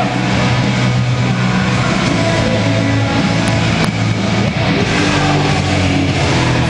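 Loud rock music over an arena's sound system, with the steady din of a large crowd underneath.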